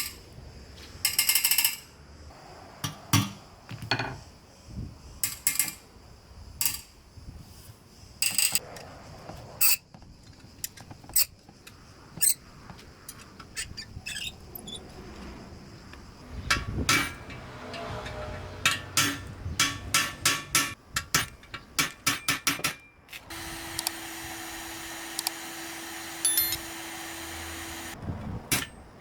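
Hand tools working rusty screws on a motorcycle exhaust: sharp metallic clicks and knocks, bunching into a quick run of clicks in the second half. Near the end a steady hum runs for about five seconds.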